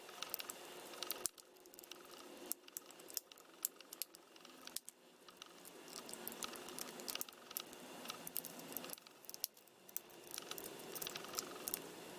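Faint, irregular plastic clicks and scrapes as the back housing of a slide phone is pried and worked at by hand.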